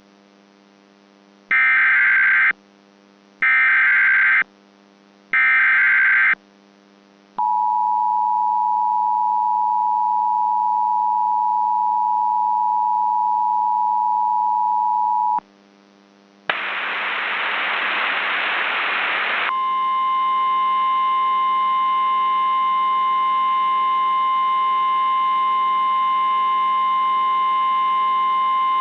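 Emergency alert tones: three short SAME header data bursts about a second each, then the two-tone EAS attention signal held steady for about eight seconds. After a brief gap comes about three seconds of static, then the single-tone NOAA Weather Radio warning alarm for about ten seconds. A low steady hum runs underneath throughout.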